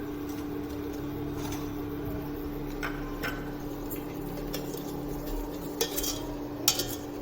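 A utensil stirring star gooseberries and sugar in a pot, with scattered clinks and scrapes against the pot, the loudest near the end, over a steady low hum.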